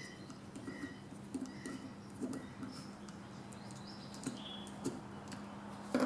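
Faint clicks and taps of a screwdriver and small metal parts as a small-engine carburetor is taken apart by hand. A bird chirps in the background over a low steady hum.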